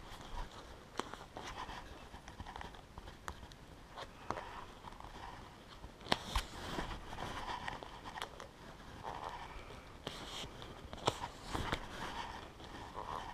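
Handlebar tape being wrapped by gloved hands: soft rustling and crinkling with scattered small clicks and taps, a few of them sharper.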